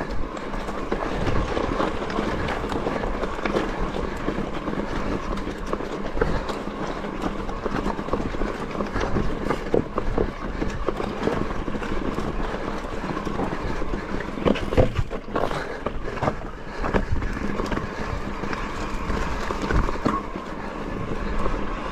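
Electric mountain bike ridden up a rough, rocky track: a continuous rattle of tyres and bike over stones with frequent knocks, over a steady hum. A few louder knocks come about two-thirds of the way in.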